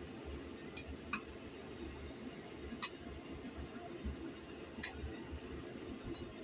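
Steel cleaver blade clinking against a cutting board as raw chicken liver is pressed and cut. There are two sharp clinks about two seconds apart and a few fainter ticks, over a low steady hum.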